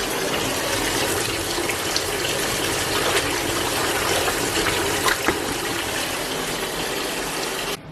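Steady rush of running water, like a tap running, with a few faint clicks in it; it cuts off suddenly near the end.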